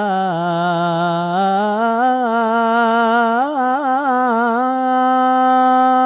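A man chanting the adhan, the Islamic call to prayer, drawing out the words 'hayya ʿala-s-salah' in one long, unbroken melodic line. The pitch dips, climbs, warbles in quick ornamental turns about three and a half seconds in, then settles on a long held note.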